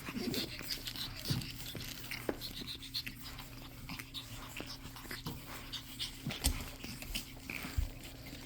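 Pug puppies panting and scuffling about, with many small scattered clicks and scratches and a few faint squeaks.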